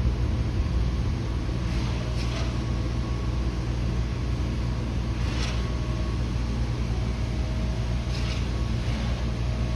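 Steady low motor-like rumble with a constant hum, and a few faint short high sounds about every three seconds.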